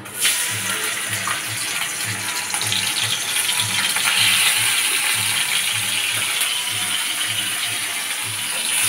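Raw prawns sizzling and spattering in hot oil in a stainless steel wok. The sizzle starts suddenly as the prawns hit the pan and goes on loud and steady.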